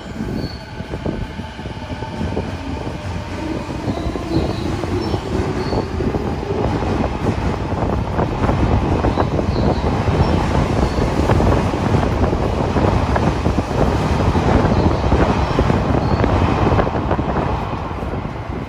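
Subway train noise in an underground station: a loud rumbling din that builds over several seconds, holds, and eases off near the end, with a faint rising motor whine in the first few seconds.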